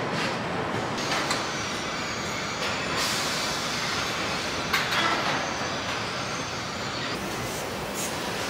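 Truck assembly plant floor noise: a steady mechanical din of line machinery, broken by a few short, sharp hisses and clanks.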